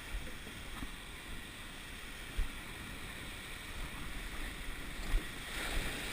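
Wind buffeting the microphone over a steady wash of sea water around a surf boat, with two short low thumps, one about two seconds in and one about five seconds in.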